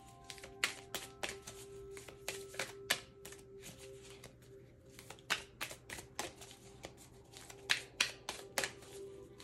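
A deck of cards being shuffled by hand: a quick, irregular run of sharp card clicks and slaps. Soft background music with a steady held tone plays underneath.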